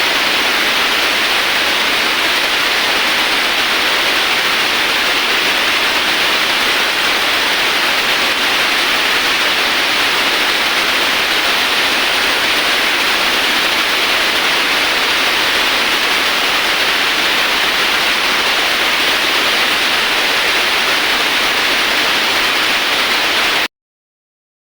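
Steady, even hiss of a CNC machine cutting during a semi-finishing pass, with no audible rhythm or tone; it cuts off abruptly near the end.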